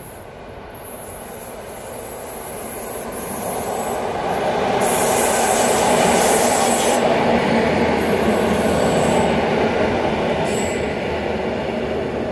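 An EN57-series electric multiple unit passes on the near track. Its rumble swells as it approaches, is loudest in the middle as the cars go by, and fades away, with brief high wheel squeals in the second half.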